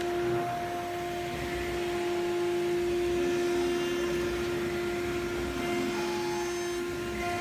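CNC router spindle running at steady speed with a constant whine, over a steady mechanical hiss.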